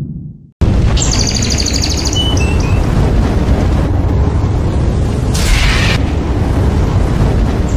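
A loud, steady rumbling noise that cuts in suddenly about half a second in, with a few short bird-like chirps over it early on and a brief hiss near the middle.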